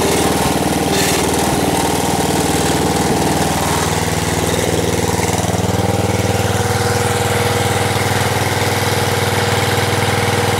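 1975 Gilson Hydro 16 garden tractor's engine running steadily; its tone shifts slightly about five seconds in.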